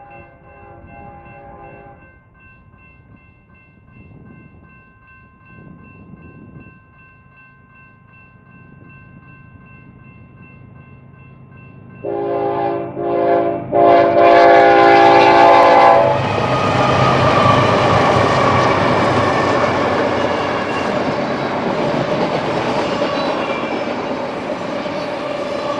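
Horn of a GE ES44C4 diesel locomotive leading a freight train, heard first from a distance, then sounding loudly in several blasts over about four seconds as it nears, about halfway in. The locomotives and the loaded double-stack container cars then roll past with steady wheel and rail noise.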